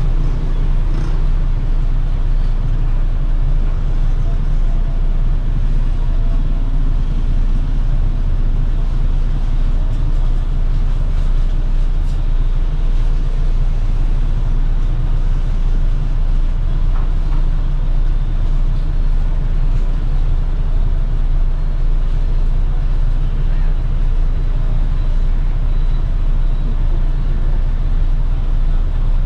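City bus running along the road: a steady low engine and road rumble.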